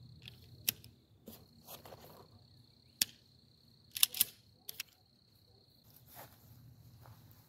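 Scattered sharp clicks and knocks of handling, loudest around three and four seconds in, over a faint steady high insect trill that stops a little past halfway.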